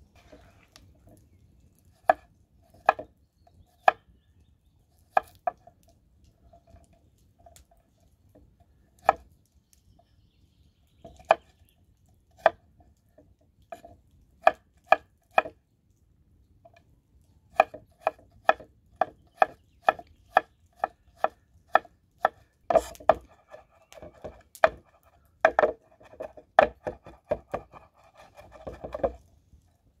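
A knife chopping garlic cloves on a wooden cutting board. There are a few scattered knocks at first, then a steady run of about two strokes a second, and faster, louder chopping near the end as the garlic is minced.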